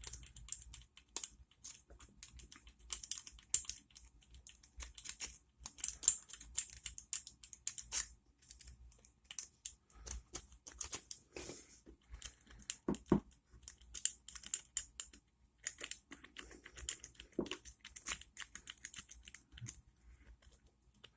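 Lock pick being rocked and raked in the keyway of an ASSA Ruko padlock: rapid, irregular light metallic clicking and scraping as the pick works the pins. The pick binds and turns in the tight keyway rather than moving freely.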